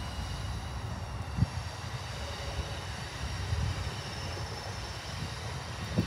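Low, steady rumble of diesel-electric freight locomotives (a KCS ES44AC leading a CP AC4400CW) approaching from well down the track, with wind buffeting the microphone and a brief thump about a second and a half in.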